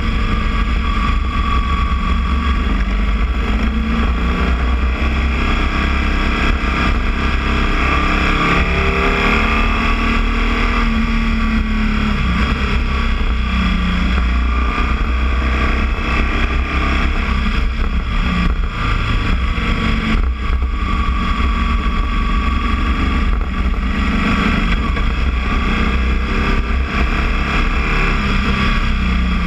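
Boxer-twin motorcycle engine running while riding, its pitch rising and falling as the throttle is opened and eased.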